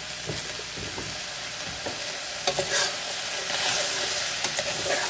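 Kangkong (water spinach) stalks sizzling in a hot pan as they are stir-fried and mixed, with a steady frying hiss and a utensil knocking and scraping against the pan now and then.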